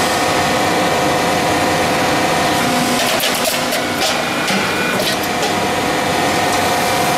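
Double cap ridge roll forming machine running steadily as coated steel sheet passes through its forming rolls: a constant mechanical hum with a steady whine, with a few sharper clicks and rattles around the middle.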